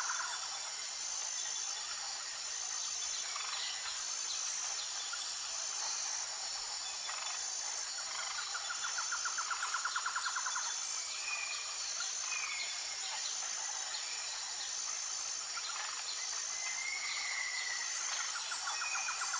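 Tropical jungle ambience: a steady high-pitched insect chorus with an even pulsing beat, a rapid trill that swells in about halfway through and again near the end, and short whistled bird calls now and then.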